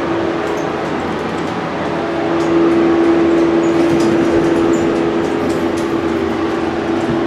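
Elevator cab ventilation fan whirring steadily with a strong hum, which gets louder about two and a half seconds in.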